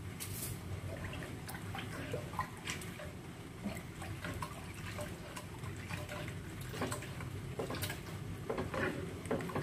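Coconut milk being stirred in a pan with a slotted spatula: soft liquid sloshing and dripping, with scattered light taps of the spatula against the pan, over a low steady hum.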